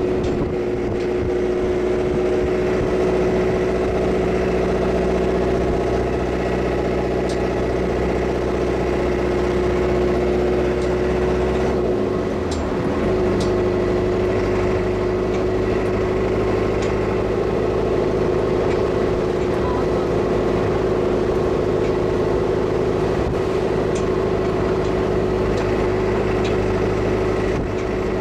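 Motorboat engine running steadily, heard from aboard the boat. Its note changes briefly about twelve seconds in, then carries on at a slightly different speed.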